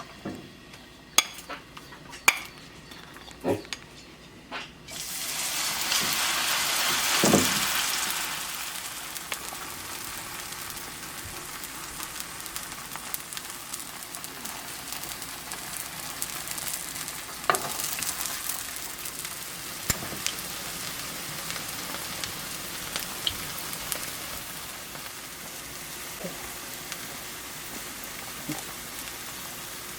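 A few sharp clicks and knocks of kitchen utensils, then about five seconds in a loud sizzle as Korean potato pancake (gamjajeon) batter goes into hot oil in a pan. The sizzle eases into a steady frying hiss with occasional taps.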